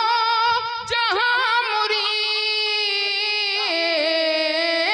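A man's voice singing a devotional manqabat verse over a stage PA, holding long high notes with a wavering pitch. There is a quick ornamented run about a second in, and the voice settles to a lower held note near the end.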